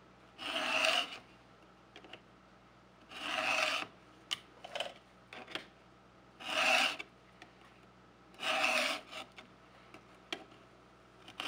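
Stihl 2-in-1 chain sharpener, a round file and a flat file in one guide, rasping across the cutting teeth of a chainsaw chain to sharpen them. Four strong strokes, each about a second long and a couple of seconds apart, with a few faint short scrapes between.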